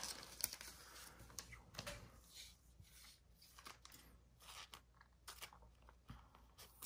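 Faint rustling and scattered soft clicks of trading cards and clear plastic card sleeves being handled.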